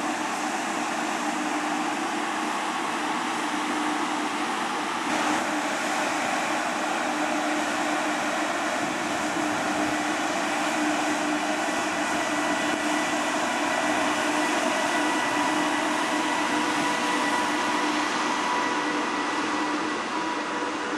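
VR Sr2 electric locomotive and its passenger coaches moving past, a steady rumble and rush of wheels on rails with a low steady electrical hum. Faint steady whining tones come in past the middle, and there is a short knock about five seconds in.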